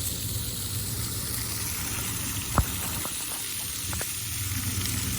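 Steady rush of running water, with one sharp click about two and a half seconds in and two fainter clicks after it.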